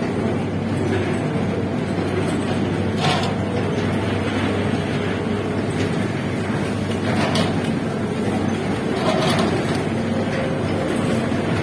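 Steady machinery drone of a sugar mill's overhead cane-unloading grab crane, with three short hissing bursts as the grab is lowered onto a trolley load of sugarcane.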